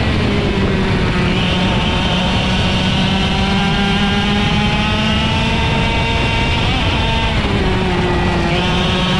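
IAME X30 125cc two-stroke kart engine at racing speed. Its revs drop sharply right at the start, then climb steadily for several seconds, drop again about seven and a half seconds in and start climbing once more.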